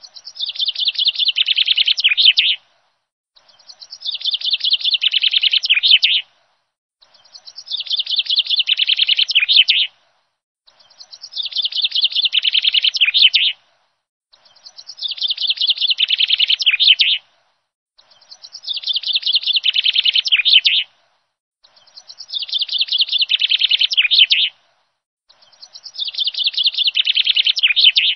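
A looped birdsong recording: the same rapid chirping trill phrase, each about two and a half seconds long, repeats eight times at even spacing, with dead silence between phrases.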